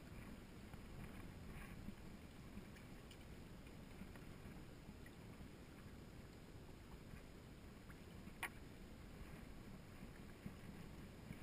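Near silence: a faint low rumble of wind and water around a small boat, with one short sharp click a little past two-thirds of the way through.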